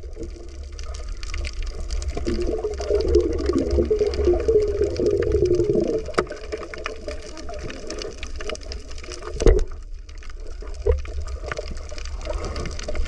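Muffled underwater water noise with a steady low rumble and scattered small clicks, from a camera filming below the surface. A louder wavering sound runs from about two to six seconds in, and there is a sharp knock about nine and a half seconds in.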